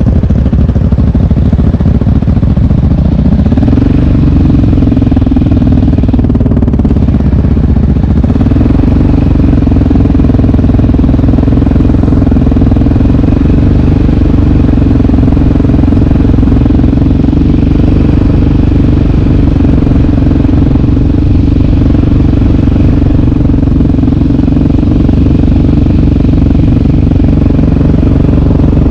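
Loud sport ATV single-cylinder four-stroke engine running under throttle while riding. Its pitch steps up about three and a half seconds in and again about eight seconds in, then holds steady.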